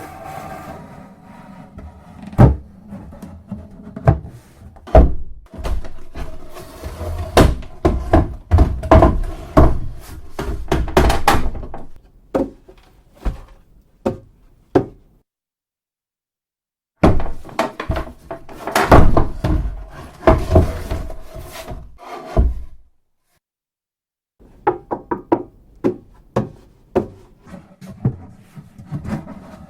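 Wooden coffin being handled: a long series of knocks and heavy thunks on the wood, with the box ringing after each, broken by two short silences. Near the end comes a quick run of lighter taps.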